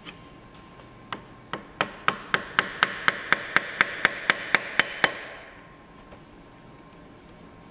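A hand tool tapping against metal under the hood at the variable valve timing (VVT) solenoid of a 4.2 L straight-six: about sixteen sharp, rapid taps. They begin about a second in, settle into about four a second, and stop about five seconds in.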